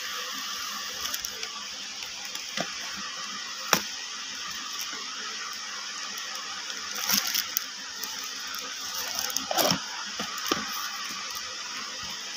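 Handling sounds of a handbag and its box: scattered sharp clicks and short bursts of rustling over a steady hiss, busiest about two thirds of the way through.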